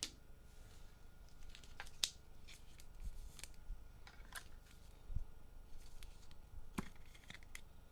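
Trading cards being handled: faint, scattered light clicks and short rustles as cards are slid and flipped through.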